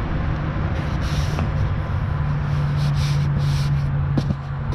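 Engine idling steadily, with short bursts of scraping and rustling about a second in and again around three seconds in.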